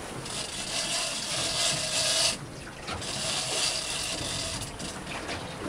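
Big-game fishing reel running with a rasping whir in two long stretches, a second or so each with a short break between, while a hooked mahimahi is fought.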